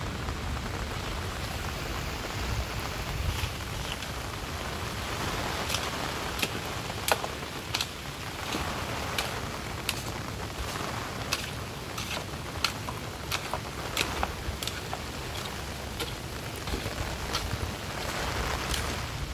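Heavy rain falling steadily, with sharp separate drops striking close by about once or twice a second.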